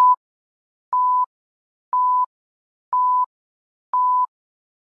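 A series of short electronic beeps, one a second, all at the same mid pitch with silence between them, about five in all.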